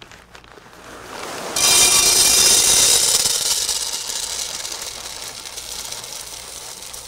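Food tipped into a hot cooking pot, setting off a sudden loud sizzle about a second and a half in that slowly dies down.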